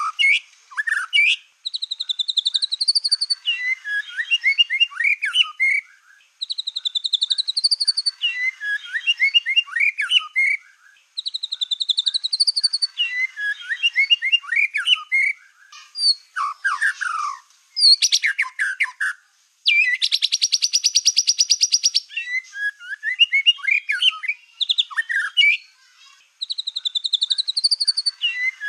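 Black-tailed white-rumped shama (murai batu) singing in full voice: a string of loud, varied phrases of rising whistled trills and quick chattering notes, each a few seconds long with short pauses between. About two-thirds of the way through comes a fast, buzzing rattle lasting a couple of seconds.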